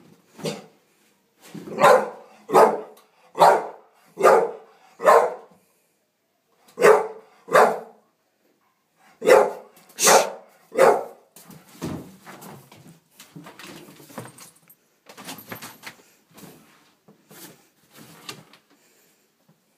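Dog barking in alarm at a broom pushed toward it: a run of five loud barks, then two, then three, followed by fainter, shorter sounds through the rest.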